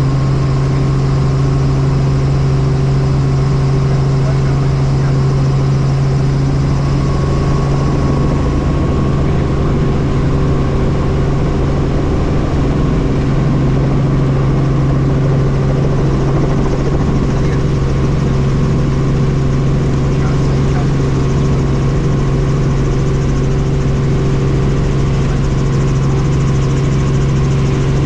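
Helicopter engine and rotor running steadily, a constant low drone.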